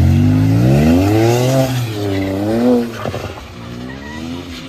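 BMW 335i's turbocharged straight-six revving hard while the car drifts on wet pavement. The revs climb for about a second and a half, dip, climb again, then drop off about three seconds in.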